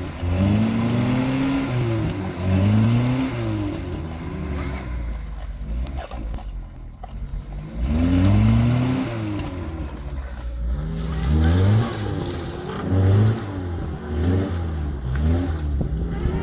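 Lada Niva engine revved up and down again and again, with a quieter lull midway, as the car tries to drive out of the mud it is stuck in.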